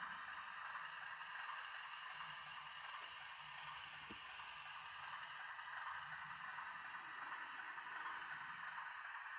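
Diesel shunter engine sound played from the small speaker of an ESU LokSound V4 DCC sound decoder in a Bachmann OO gauge class 03 model, mixed with the model's own motor as it runs along the track. The sound is faint and steady, with a low throb that swells and fades a few times.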